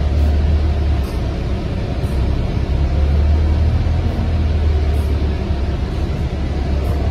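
Steady low rumble of a road vehicle's engine and tyres, heard from inside the moving vehicle.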